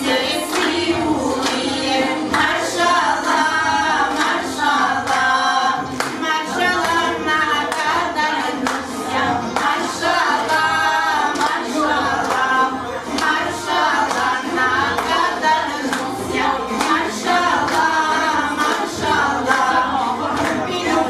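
A group of voices singing together, with hand clapping.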